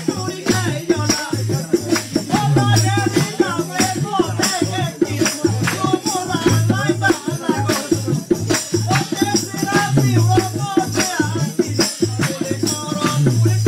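Live Pahari jhuri folk singing: a man's voice carrying a wavering melody over fast, steady rattling percussion.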